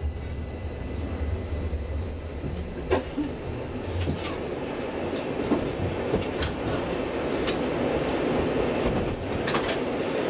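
Stockholm Tvärbanan A32 tram running along the track, heard inside the passenger cabin: steady rolling noise with a few sharp clicks from the wheels, growing a little louder about halfway through.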